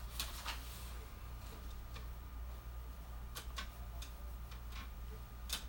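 Faint, scattered crinkles and rustles of plastic wrapping and a cotton T-shirt being handled and unfolded, with one sharper click about five and a half seconds in.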